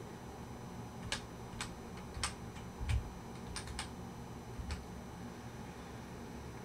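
Computer keyboard keys tapped as a word is typed: about eight separate, unevenly spaced clicks, faint over a low room tone.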